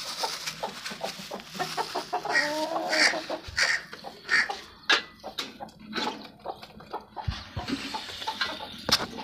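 Chickens clucking, with a wavering call about two to three seconds in, over scattered knocks and clatter from handling a plastic bowl at a wire cage.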